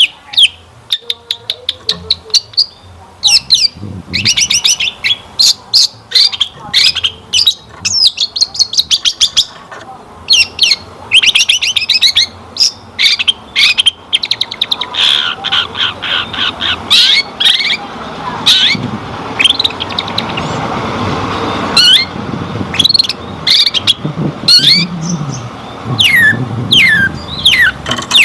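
Long-tailed shrike (cendet) singing a fast, chattering song of rapid repeated chirps and trills packed with mimicked calls of other birds, with a run of short falling whistles near the end.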